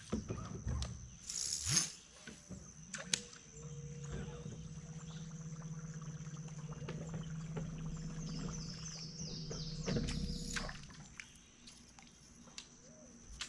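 Topwater buzzbait being reeled in, its blade churning the water's surface in a steady, finely pulsing run for about seven seconds and ending with a splash near the boat. A sharp whoosh and splash of the cast come about two seconds in, and a steady high insect drone runs underneath.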